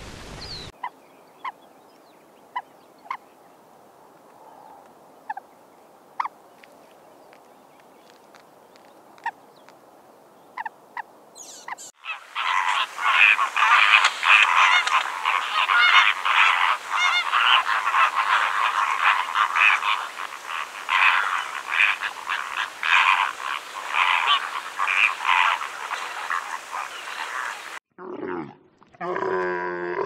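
A flock of flamingos calling together: a dense, continuous honking chatter that starts about twelve seconds in, lasts some fifteen seconds and then cuts off. Before it there is only a faint background with a few sharp, short clicks.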